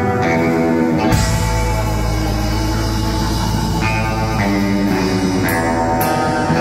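Horror surf rock instrumental played live by electric guitar, electric bass and drum kit, with held guitar notes. About a second in, a heavy low bass line comes in under the guitar and holds until near the end.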